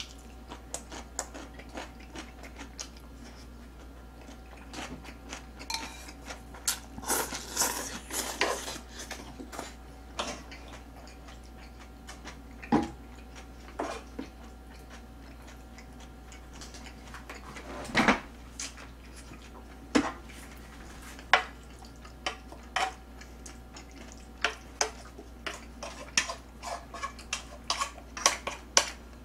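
Spoon and chopsticks clinking and scraping against a shallow cooking pan and bowls, in irregular clicks and knocks with a few louder single knocks.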